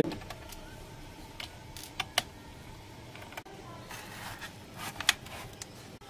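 Scattered small clicks and taps from hands working at a laptop's plastic bottom cover, most of them around two seconds in and again near five seconds.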